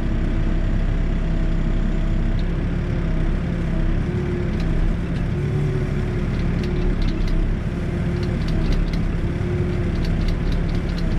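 New Holland backhoe's diesel engine running steadily while the backwards-fitted bucket works, with a couple of tones that come and go over it. Scattered sharp clicks from about four and a half seconds in.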